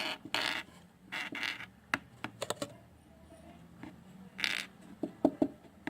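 Items being handled in a refrigerator: scattered light clicks and knocks with short rustling noises, several sharp clicks close together near the end.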